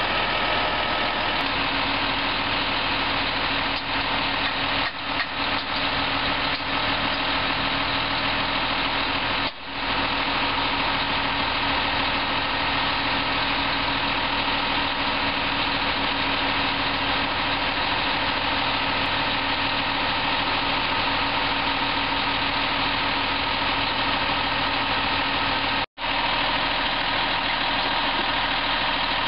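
Sewer vacuum truck's engine running steadily at idle, a constant drone with a steady hum through it. The sound cuts out for an instant about three-quarters of the way through.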